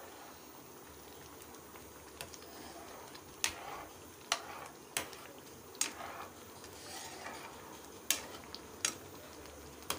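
A spoon stirring thick semolina kesari in a pan, knocking against the pan several times at uneven intervals, over a low steady hiss from the cooking mixture.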